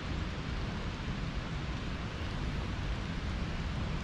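Steady wind noise: a low, uneven rumble of wind buffeting the microphone under an even hiss.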